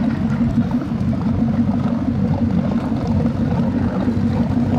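Old wooden runabout's V8 engine idling at the quay, a loud, steady, deep rumble with no revving.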